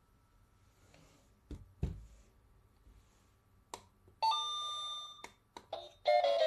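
Children's electronic alarm clock: a few clicks and knocks, then about four seconds in a chime tone sounds and fades over about a second, and near the end the clock starts playing an electronic melody of stepped notes.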